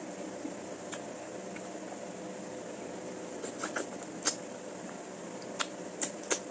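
Short sharp clicks of eating a salmon-head sinigang, a handful spread over the last three seconds, over a steady background hum.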